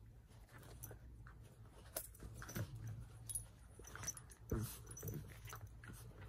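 Two small dogs play-fighting, mouthing and play-biting at each other. It is quiet at first, then from about two seconds in come short snaps, scuffles and brief grunting sounds.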